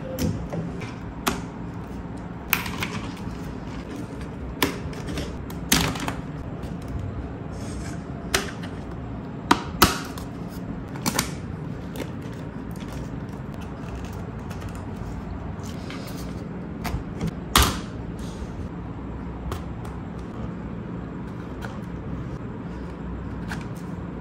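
Hard plastic parts of a toy parking-garage playset clicking and knocking as they are fitted and snapped together by hand: irregular clicks and taps, with a sharp double snap about ten seconds in and another loud snap near eighteen seconds, over a steady low hum.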